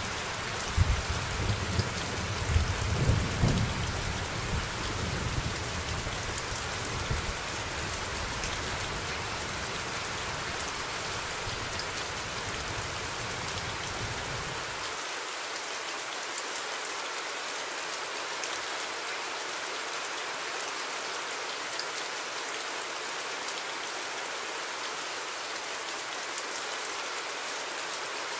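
Steady rain falling, an even hiss of drops. Low thunder rumbles under it, swelling a few times in the first seconds, then stops abruptly about halfway through, leaving only the rain.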